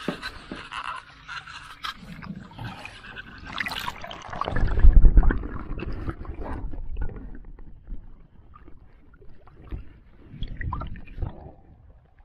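Water splashing and sloshing against the side of a small boat as a fish is held in the water and released. The splashing and gurgling are loudest, with a heavy low rush, about five seconds in, and a few smaller splashes follow near the end.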